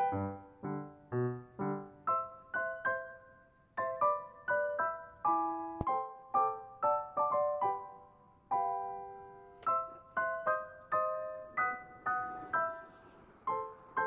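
Background solo piano music: a gentle melody over chords, each note struck and fading away.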